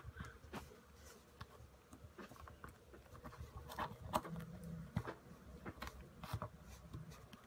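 Faint handling sounds of fingers pressing and working softened thermoplastic moulding material against a small plastic chest: scattered small clicks, taps and rubs over a low room hum.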